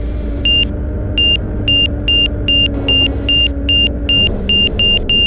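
Angle-of-attack warning in the Van's RV-12iS cockpit sounding as short high beeps, about two a second, after touchdown, over the steady drone of the Rotax engine and propeller. A steady tone in the drone drops away about four seconds in.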